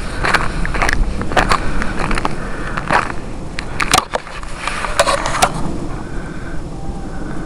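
Footsteps crunching through deep snow, one crunch every half second to a second, stopping about five and a half seconds in, over a steady low rumble.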